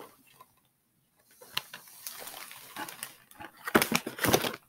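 Rustling and crinkling of shopping packaging as items are handled, with several sharp knocks near the end.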